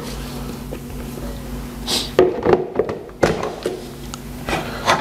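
Knocks and clatter of a plastic mixing bowl and attachment being set down and handled on a Bosch MUM 5 stand mixer and worktop, a few separate knocks over a steady low hum.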